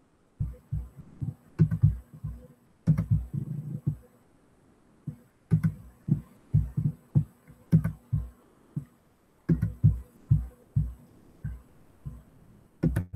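Computer handling noise: an irregular run of soft low thumps on the desk, with a few sharp mouse clicks among them.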